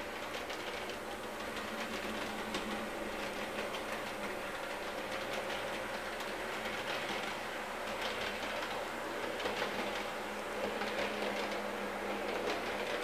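HO-scale model train running on its track: the locomotive's small electric motor whirs steadily while the wheels click irregularly over the rail joints.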